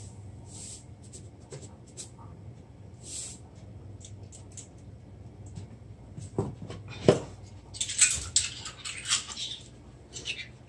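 Salt poured from a canister into a metal measuring spoon with a faint hiss, then two sharp clinks of the spoon and a spell of rustling and clicking as the seasonings are handled in a plastic bowl.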